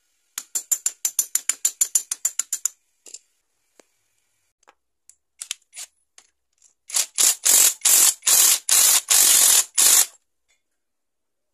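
Quick run of ratchet clicks, about eight a second, while a nut is turned at a wheel hub. Near the end comes a cordless impact wrench in about eight short bursts of hammering on the nut.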